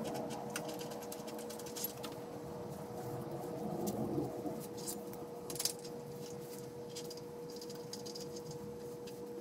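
Small metallic clicks and rattles of nuts and washers being handled and fitted by hand onto the mounting studs at the base of a power feeder, over a steady hum.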